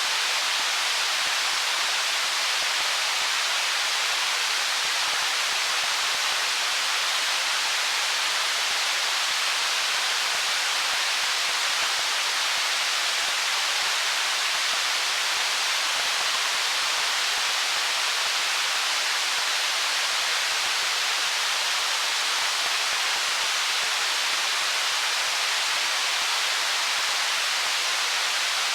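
Stream water running over stones: a steady, even hiss-like rush with no separate splashes or drips.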